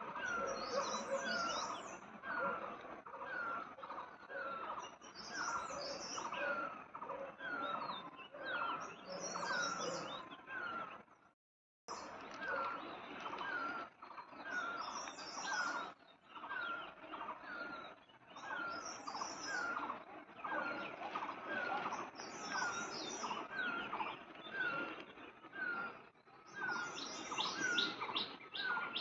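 Forest birdsong: one bird repeats a short hooked note about once or twice a second, while another gives brief high twittering phrases every few seconds. The sound drops out completely for about a second, roughly 11 seconds in.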